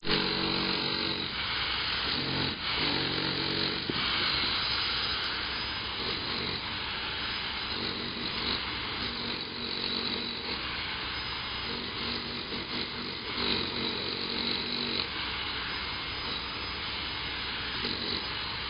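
A power tool running steadily against the concrete wall of an empty pool during crack-repair prep, with a motor hum that fades in and out.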